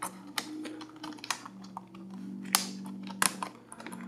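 Irregular plastic clicks and taps from an HP Mini netbook's keyboard as its keys and edges are pressed and pushed to free it from the case, with a sharper click about two and a half seconds in.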